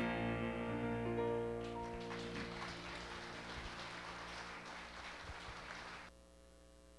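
The last chord of a live gospel song, with bass guitar, rings out and fades, joined by light applause that dies away. The sound cuts off abruptly about six seconds in, leaving only a faint hum.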